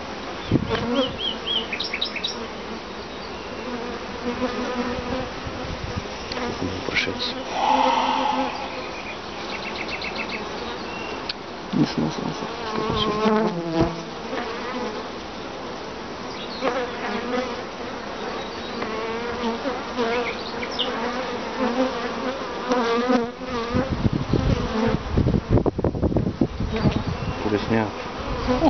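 Honeybees from an open hive frame buzzing, a steady hum that rises and falls a little as the bees move. Near the end a loud low rumbling noise joins the buzz.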